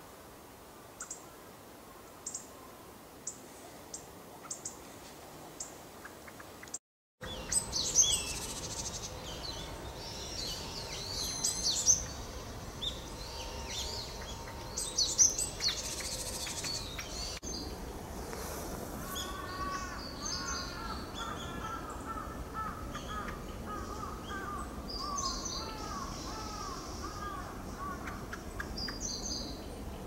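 Pale thrush calling, in three edited clips. First come faint, short, sharp call notes about once a second. Next come louder, harsher clusters of high calls. Last is a quick run of lower arching notes mixed with higher calls.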